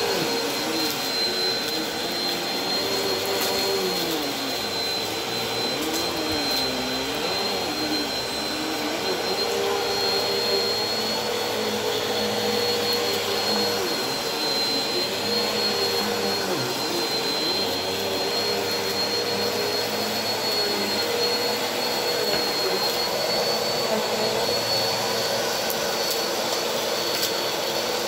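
Upright vacuum cleaner running steadily over a shag rug: a constant motor whine, with a lower hum that rises and falls every couple of seconds as the load changes. Scattered light crackles of grit and debris are being sucked up.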